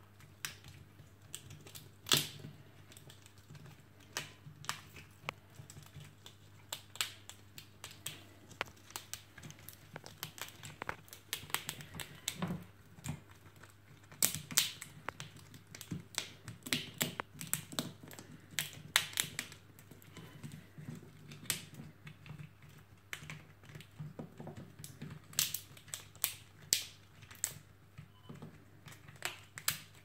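Grey squirrel gnawing a pine cone, its teeth cracking and snapping off the scales in irregular crisp clicks, some in quick runs and some single and louder.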